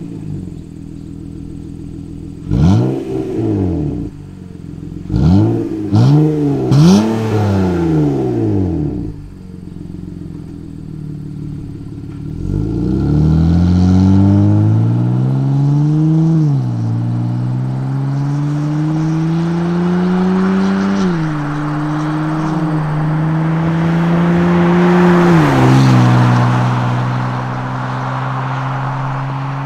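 Honda Ridgeline's 3.5-litre V6 through an MBRP 2.5-inch cat-back exhaust with a single side-exit tip. It is blipped four times while standing, then pulls away about twelve seconds in, rising in pitch through two upshifts before easing off to a steady cruise as it drives off.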